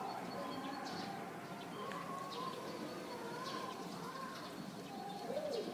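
Doves cooing in soft, rounded phrases, with short chirps of small birds over a steady outdoor background.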